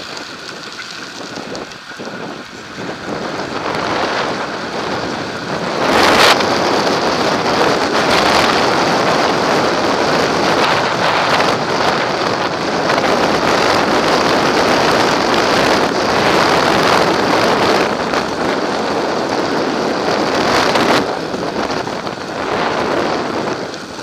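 Wind rushing over the microphone of a camera mounted on a moving road bicycle. It grows louder over the first few seconds and then stays loud.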